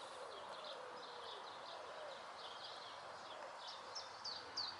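A small songbird gives short, high, falling chirps, two or three a second, growing clearer in the second half, over a faint steady outdoor background. A faint, low, wavering call sounds during the first two seconds.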